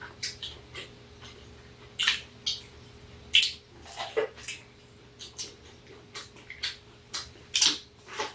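A person biting and chewing corn on the cob: irregular wet mouth clicks and smacks, several a second at times.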